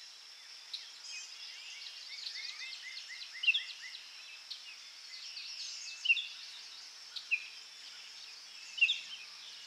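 Songbirds singing and chirping among trees over a steady high hiss. A run of about six short down-slurred notes comes between one and three seconds in, and louder chirps stand out at about three and a half, six, seven and nine seconds.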